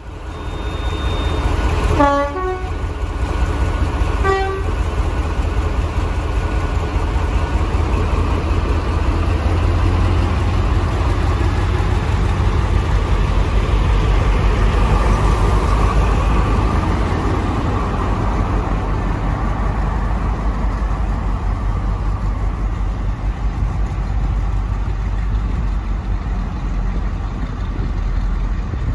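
Diesel locomotive horn sounds two short blasts, the first about two seconds in and the second about two seconds later. Class 35 Hymek diesel-hydraulic locomotives run steadily under the horn, and their engine note builds and grows loudest about halfway through as the train works away.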